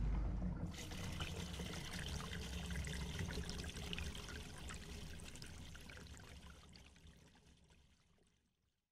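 Sound effect of water splashing, pouring and trickling, dying away gradually over about seven seconds.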